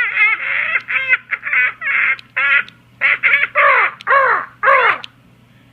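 Loud, harsh, cackling laughter: a run of 'ha-ha' bursts, each falling in pitch. It breaks off about five seconds in.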